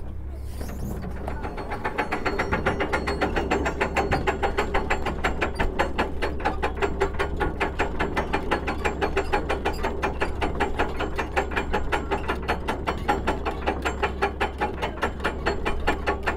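Hand-cranked deck winch on a sailing ship, its pawl clicking rapidly and evenly over the ratchet as the winch is wound, starting about two seconds in. A steady low hum runs underneath.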